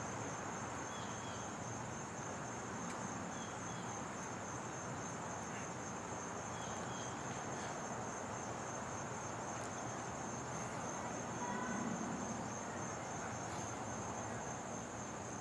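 Steady high-pitched chorus of crickets over a faint outdoor background hiss, with a few faint short chirps.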